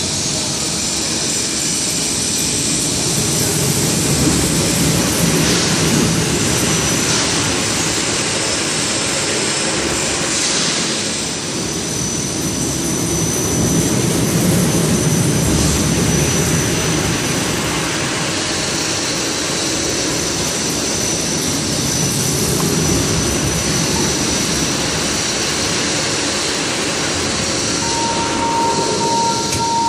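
Overhead crane travelling along its runway: a loud, steady rumble of drive motors and wheels with a thin high whine. A steady tone comes in near the end.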